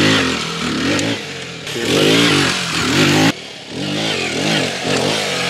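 Aprilia RX 125's single-cylinder four-stroke engine revving up and down in quick throttle blips as the enduro bike is ridden off-road.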